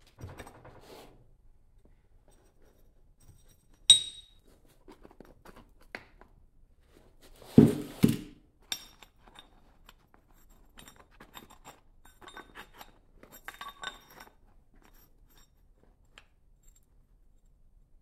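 Metal mould frames and cast aluminium pieces being handled: a sharp ringing metal clink about four seconds in, a heavier double clunk around eight seconds, then light scraping and clinking as the mould halves are pulled apart.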